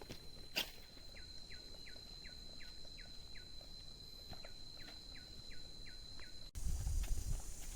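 A bird calling a quick series of short, falling notes, about three a second, over a steady high-pitched insect drone. Near the end both stop at a cut and give way to a low rumble like wind on the microphone.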